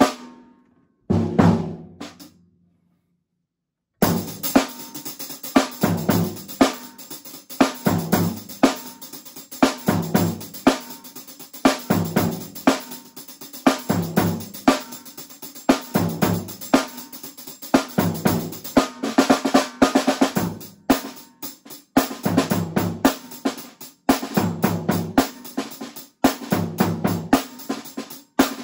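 Drum kit played with a floor tom converted to a kick drum by a Pearl floor-to-kick conversion kit, together with snare, hi-hat and cymbal. Two hits ring out at the start, then a pause of about two seconds. From about four seconds in a steady groove plays.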